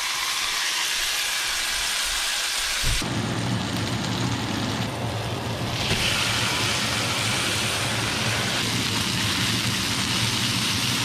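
Pike fillet sizzling in hot oil in a frying pan, a steady hiss. A low hum joins about three seconds in.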